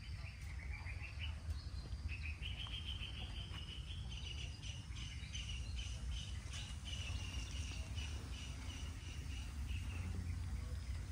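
Outdoor ambience of a high, steady insect drone with some bird chirps, over a constant low rumble.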